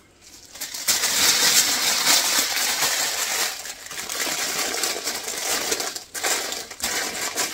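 Plastic piping bag crinkling and crackling as it is handled, loudest in the first couple of seconds and then lighter, with scattered sharp crackles.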